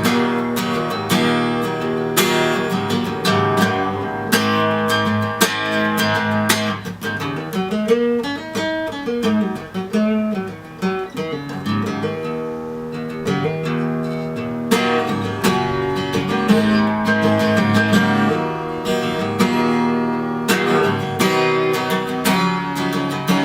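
Acoustic guitar music, strummed and picked, thinning to a sparser stretch of single notes partway through before full strumming returns.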